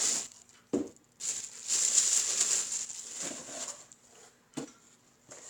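Rustling and handling of a water bottle and its packaging as it is unwrapped, with a knock about a second in and a sharp click near the end.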